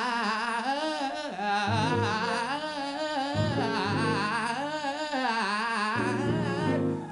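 A man singing a showy gospel-style vocal run into a handheld microphone, the melody wavering up and down with heavy vibrato. Held chords from an accompanying instrument come in underneath several times, and the singing stops just before the end.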